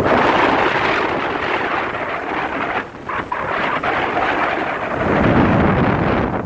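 Strong wind buffeting the microphone, a loud rushing roar that dips briefly about three seconds in and swells deeper near the end.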